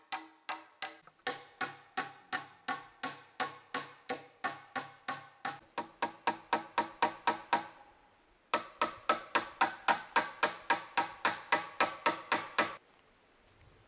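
Steady hammer blows on wood, about three a second, each with a short metallic ring: a nail being driven to fix a wooden crossbeam to a tree trunk. The blows pause briefly just past the middle, resume louder, and stop abruptly about a second before the end.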